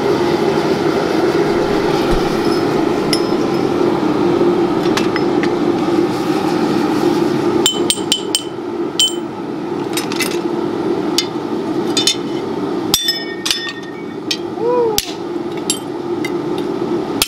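Hand hammer striking a steel sword blade on an anvil: sharp, bright ringing clinks, a few faint ones at first, then many from about eight seconds in, over a steady hum.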